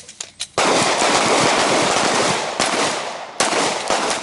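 Several handguns firing rapidly and overlapping, as a line of shooters fire together. The shots start about half a second in and run on almost without a break, with a short dip before a last burst near the end.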